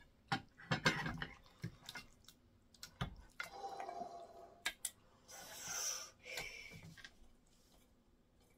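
Thick egusi soup being tipped out of a stainless steel pot onto a plate of semolina fufu: a few knocks and clinks of the pot, then wet sliding and plopping of the soup that stops about 7 seconds in.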